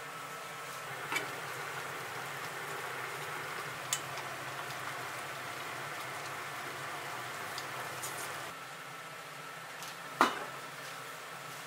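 Steady hiss of food cooking over a gas stove, easing a little after about eight seconds. There are a couple of light taps, and about ten seconds in a single sharp clink of cookware.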